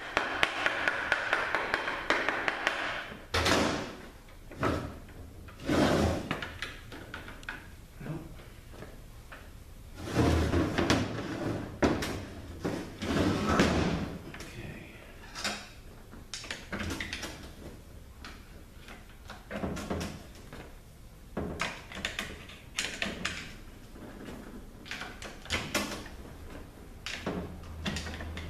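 Irregular metal clunks, knocks and scraping from a ZF 5HP24 automatic transmission being taken apart by hand: the center support, a tight fit on its guides, being wiggled and slid out of the case. The longer rattling, scraping stretches come near the start and about a third of the way in.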